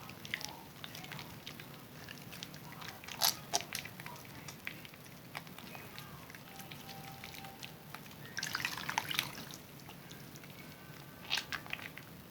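Zest bar soap being lathered with wet hands: soft wet squishing and fine crackling of suds, with water dripping. There are louder clusters of wet crackles about three seconds in, around nine seconds, and again near the end.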